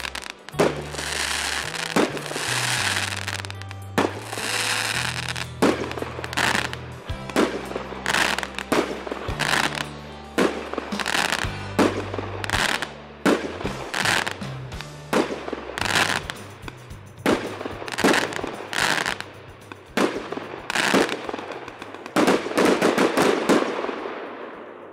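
A 100-shot, 1-inch consumer firework cake firing: sharp shot after shot about once a second, some bursts trailed by crackling stars. The shots come thick and fast in a closing volley near the end, then die away.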